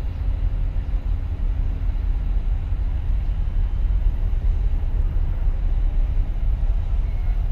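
Wind buffeting the microphone as a dense, uneven low rumble, with a faint steady hum that fades out about three seconds in.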